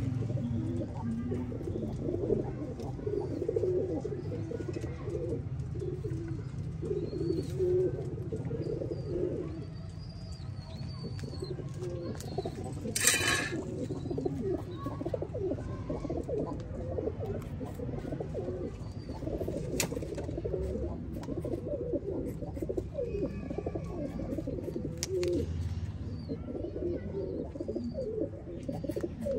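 Pigeons cooing almost without pause, with small birds chirping faintly high above them. A single brief sharp noise cuts in about thirteen seconds in.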